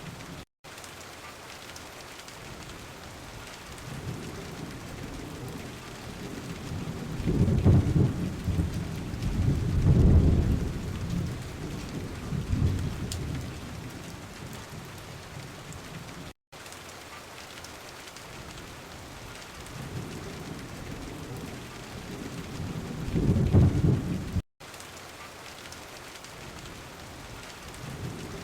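Steady heavy rain with two long rolls of thunder: the first builds a few seconds in and peaks twice before fading, the second swells past the middle and cuts off abruptly. The sound drops out for an instant three times, at the joins of a looped track.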